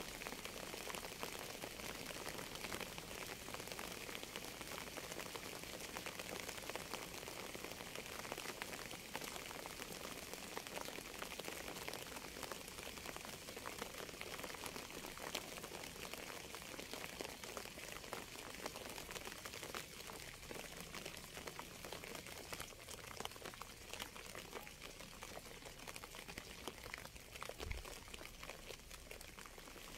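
Steady rain: a dense, even patter of many small drops.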